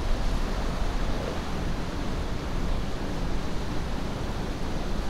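Ocean surf and wind: a steady, even rushing noise with no separate wave crashes standing out.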